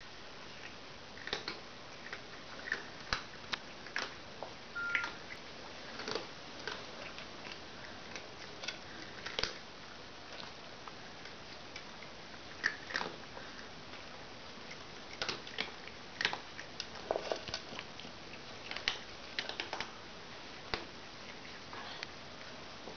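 Two cats eating dry kibble from bowls: irregular crunches and clicks of chewing, some close together in quick runs, others a second or more apart.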